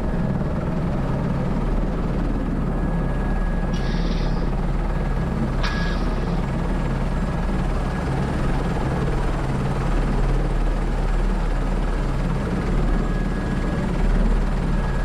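Airbus H125 helicopter's single turboshaft engine and rotor running steadily in flight, a constant low drone. Two brief hissing clicks come about four and six seconds in.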